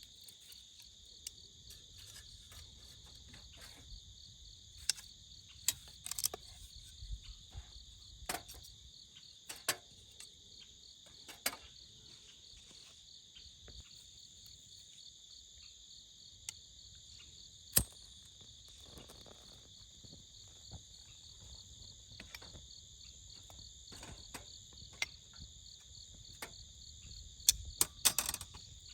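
Night insects, crickets, trilling steadily in several high pitches, with scattered sharp clicks and pops. The clicks come thickest just before the end.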